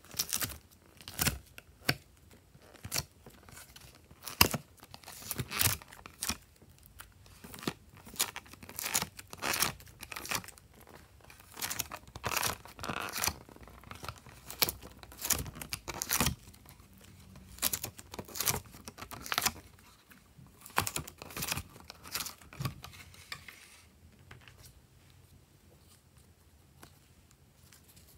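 Soft cubes being broken off a block and popped out of a thin clear plastic tray by hand, with irregular sharp crackling and tearing of the plastic and cubes. It thins out to a few faint crackles near the end.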